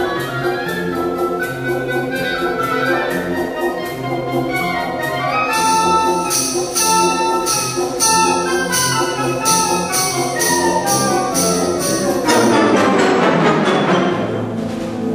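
Concert wind band playing a brisk passage over an evenly repeated percussion beat. The high percussive strokes grow brighter about halfway through, and a falling run through the band near the end leads into a louder passage.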